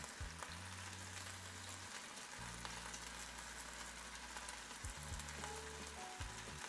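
Cooked potato slices frying in hot olive oil in a fry pan, a quiet, steady sizzle. A few soft clicks come as more slices are laid into the oil, one near the end.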